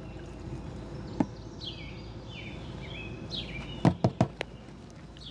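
Birds chirping in short rising and falling calls over a steady outdoor background, with a few sharp knocks about four seconds in, from the plastic chemical jug being handled at the sprayer tank.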